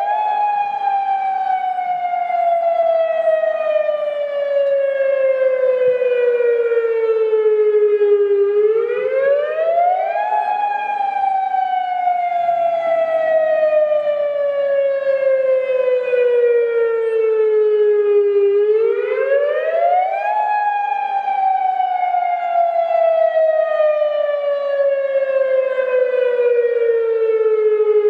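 Federal Signal Modulator 6024-B electronic siren sounding the wail signal of a tsunami warning test. The pitch rises quickly over about two seconds, then falls slowly over about eight, and the cycle repeats about every ten seconds.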